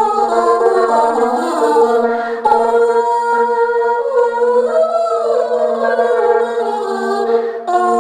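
Choral singing: several held, wavering vocal notes stacked over a steady drone, with the texture shifting about two and a half seconds in and again near the end.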